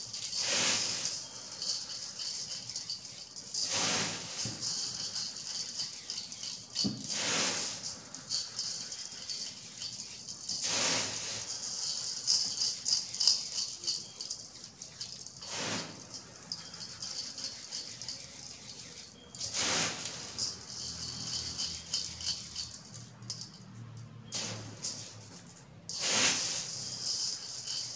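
Paint-coated stone flooring chips being mixed by hand in a steel bowl, rattling and swishing. A louder gritty swish comes every few seconds as a handful is lifted and turned over.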